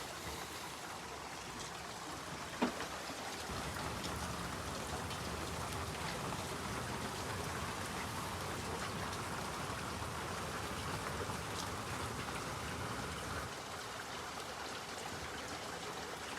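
Steady rain falling, with scattered sharp drip ticks, one loud one about two and a half seconds in. A low rumble joins underneath from about three and a half seconds in and drops away near the end.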